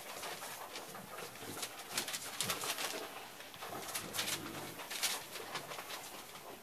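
English bulldog puppies playing, giving short low grunting sounds, with scattered clicks and rustles from their paws scuffling on carpet and newspaper.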